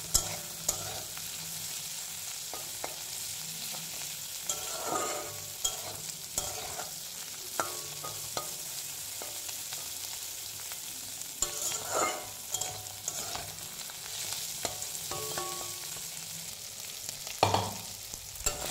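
Small dried fish sizzling steadily in hot oil in a metal kadai, while a metal spatula scrapes and clinks against the pan as it stirs them. There are louder scrapes about a quarter of the way in, around the middle, and near the end.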